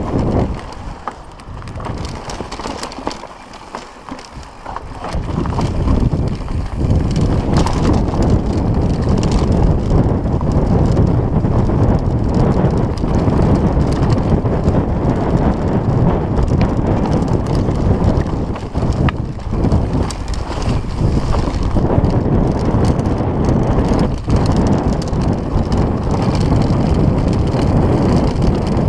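Mountain bike riding fast down a dirt trail: wind rushing over the camera microphone mixed with tyre noise on dirt and many small rattles and knocks from the bike over bumps. It is quieter for a few seconds near the start, then steady and loud.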